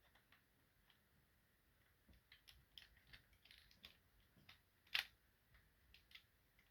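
Faint clicks and rattles of hard plastic Transformers figure parts being handled and pressed together, with one sharper click about five seconds in.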